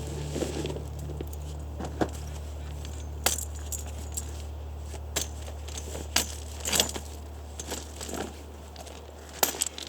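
Scattered light clinks and knocks, about a dozen at uneven intervals, of camp gear being handled, over a steady low hum.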